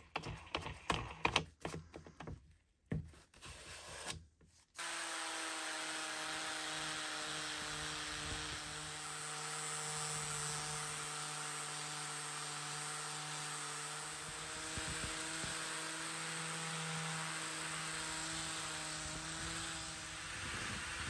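For the first few seconds, irregular taps and rustles as a P240 sanding disc is pressed onto the angle grinder's hook-and-loop backing pad. Then, about five seconds in, the angle grinder runs steadily with a hum and a sanding hiss as the spinning disc sands the steel head of a forged hammer.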